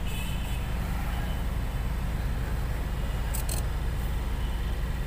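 Toyota Etios cabin AC blower fan running steadily over a low hum, with its squirrel-cage wheel freshly cleaned of debris so that the earlier noise is gone. A couple of light clicks about three and a half seconds in.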